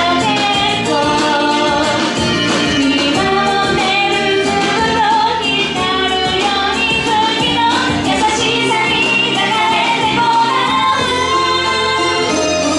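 A woman singing a Japanese pop song live over instrumental accompaniment, her melody moving through held notes.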